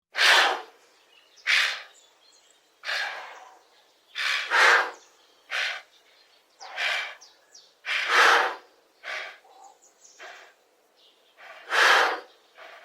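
Giraffe snorting: about a dozen short, breathy blasts of air through the nose, coming at uneven intervals with quiet gaps between them.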